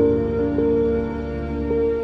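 Background music: a slow instrumental with held chords, one note changing about half a second in and again near the end.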